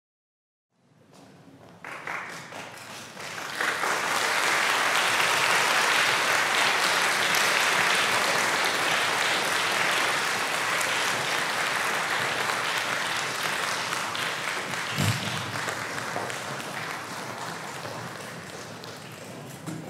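Audience applauding in a concert hall: the clapping starts about a second in, swells to full within a few seconds, then slowly dies away. A single low thump sounds near the end.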